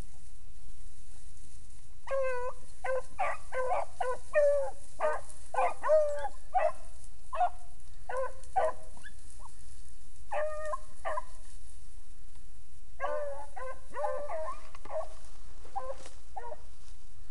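Pack of beagles baying as they run a rabbit's track: repeated ringing hound calls in bursts, with a break near the middle before the voices pick up again. A steady low rumble lies underneath.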